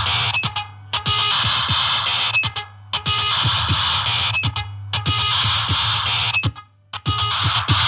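Loud electronic noise music: a dense distorted wash over a steady low drone, cut by abrupt silent breaks about every two seconds, with a longer break near the end.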